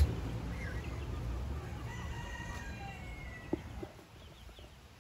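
A rooster crowing once, a drawn-out call from about one and a half to three seconds in, after a brief squawk. A couple of light knocks follow.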